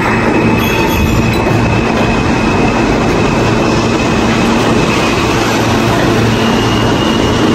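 New York City subway train running along the platform close by: a steady, loud rumble and rattle of wheels on rail, with a faint high whine joining near the end.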